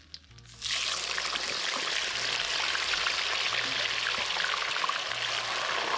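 Raw potato chips going into hot oil in a wok: the oil bursts into loud, dense sizzling and crackling about half a second in and keeps frying steadily.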